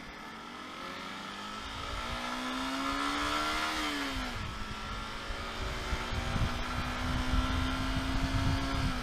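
Single-cylinder 150 cc motorcycle engine pulling under way, its pitch rising for about four seconds, dropping sharply at a gear change, then holding steady at cruising speed. Wind rumble on the microphone grows as the bike picks up speed.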